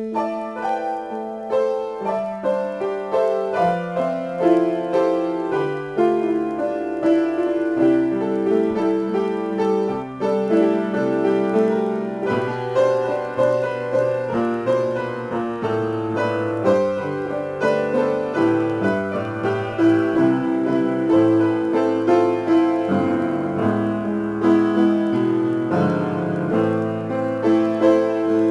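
Upright piano played solo: a free improvisation in A minor, a continuous flow of notes over held chords and moving bass notes.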